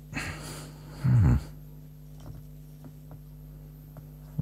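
A breathy exhale, then about a second in a short, low man's grunt that falls in pitch. A few faint clicks of small resin parts being handled follow.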